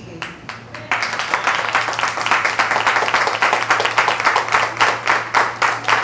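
Audience applauding: a few scattered claps, then the whole room breaks into steady, dense clapping about a second in.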